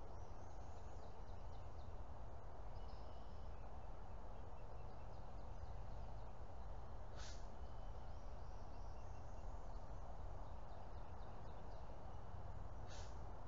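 Steady outdoor background noise with faint high chirps, like distant birds, and two brief hissing bursts about seven and thirteen seconds in.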